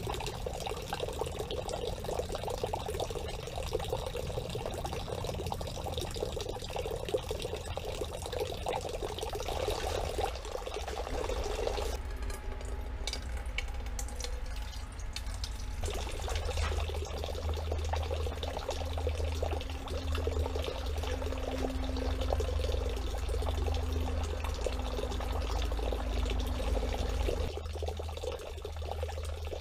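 Water running steadily from a stone wall fountain's spout and splashing into a metal pot held under it. A low steady rumble runs under the water from about halfway through.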